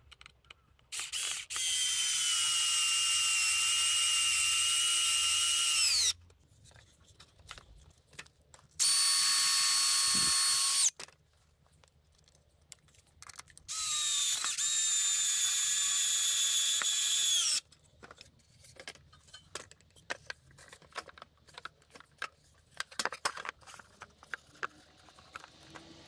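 Power drill running in three bursts of a few seconds each; in the first and last bursts the motor whine sags in pitch as it stops, and the middle burst is higher and shorter. Light clicks and knocks follow in the last several seconds.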